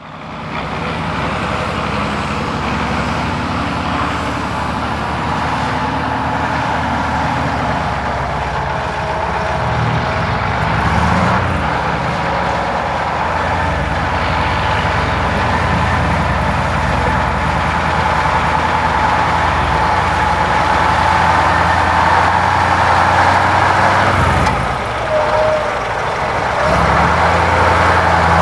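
KrAZ-255 6x6 truck's V8 diesel engine running as the truck drives off-road, its note shifting with the throttle and dropping briefly about 25 seconds in.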